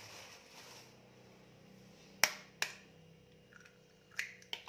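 Eggs knocked against the rim of a plastic mixing bowl to crack them: two sharp knocks about half a second apart a little over two seconds in, and two more near the end.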